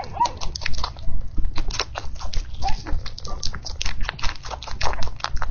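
Chewing on crunchy food: rapid, irregular crunches several times a second, with a couple of short high squeaks.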